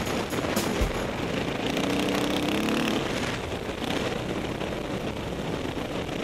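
Off-road vehicle engine running as it rides a dirt trail, with a steady rush of wind and trail noise on the vehicle-mounted camera and a single knock about a second in.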